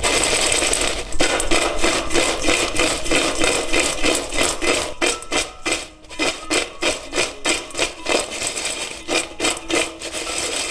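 Crisp fried potato sticks tossed in a stainless steel bowl to coat them in cheese powder, rattling and scraping against the metal. The shaking is dense at first, then settles into a regular rhythm of about three shakes a second.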